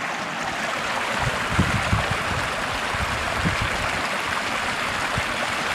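Water of a small cascade running steadily over rock, with a few short low bumps about a second to three and a half seconds in.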